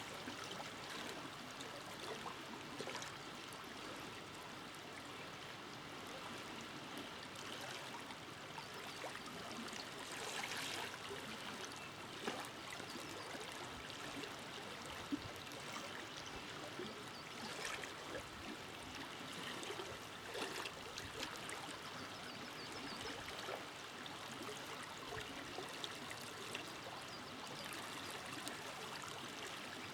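River water flowing and burbling over stones, a steady rushing with small splashes and trickles coming and going.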